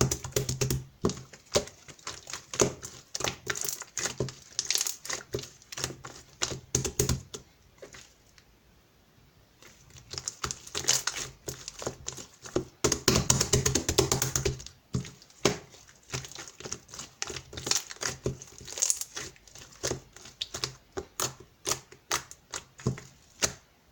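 Clear lime-green slime being worked by hand, giving rapid sticky clicks and pops, with a short lull about a third of the way through.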